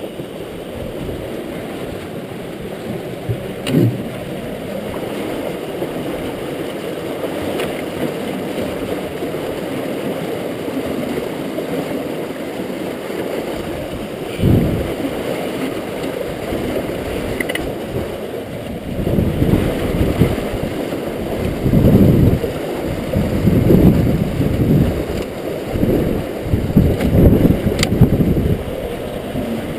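Steady rush of river water churning through a rotary screw fish trap, with a run of louder low rumbling surges in the last ten seconds and a few light knocks.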